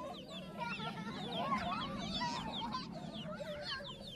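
Domestic chicks peeping continuously, many short high falling cheeps overlapping one another.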